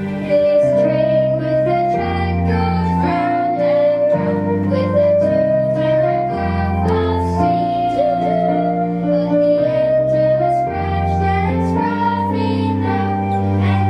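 A slow song sung by children's voices over instrumental accompaniment, with held melody notes over a changing bass line.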